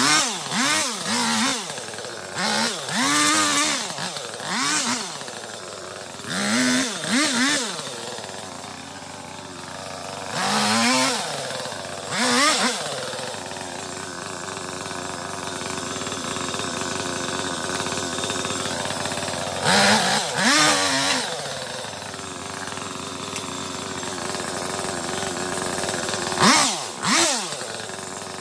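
Petrol chainsaw cutting branches, revved in short bursts that rise and fall in pitch and dropping back to a steady idle between cuts, with a long idle in the middle.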